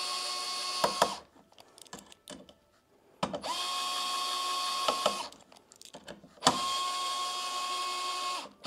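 Bosch cordless screwdriver driving screws in three runs of about two seconds each: a steady motor whine that stops with a click, with short pauses between runs.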